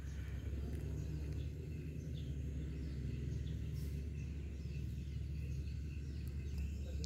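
Outdoor ambient noise: a steady low rumble with faint, scattered high chirps.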